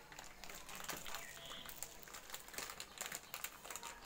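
Light rustling and crinkling of the paper packing on a new bicycle frame, with scattered small clicks as the parts are handled during assembly.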